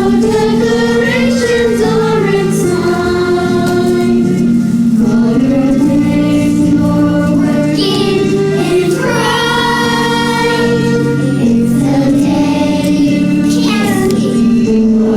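A choir singing a song, with long held notes.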